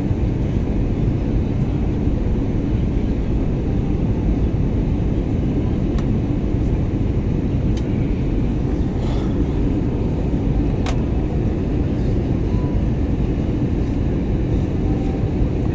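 Steady low rumble of a passenger airliner's engines and airflow, heard inside the cabin in flight, with a few faint clicks.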